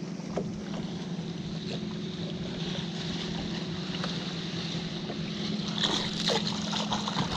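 A hooked bass splashing at the surface beside the boat about six seconds in, over a steady low hum.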